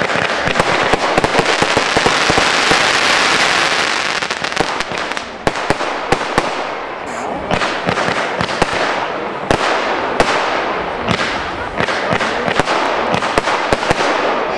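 53-shot fan-shaped firework cake firing: a rapid string of sharp launch and break shots, with a dense crackling hiss from crackling stars that is heaviest in the first few seconds.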